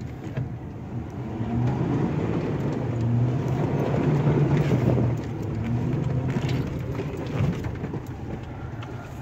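Pickup truck in four-wheel drive driving through a mud puddle, heard from inside the cab: the engine works harder and the sound gets louder from a second or so in, peaks around the middle, then eases off as the truck comes through.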